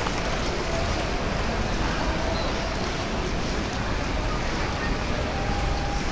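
City street ambience: a steady wash of traffic noise with people's voices mixed in.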